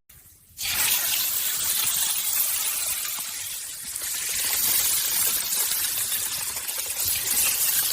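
Food frying: a steady, dense sizzling hiss that starts about half a second in and holds on without a break.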